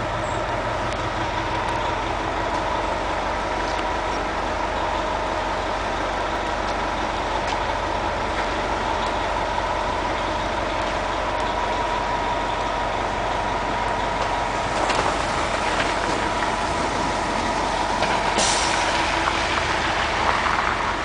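A steady mechanical drone with a constant high tone over a low hum, like an engine or large machine running without change. Near the end a brighter hiss rises over it.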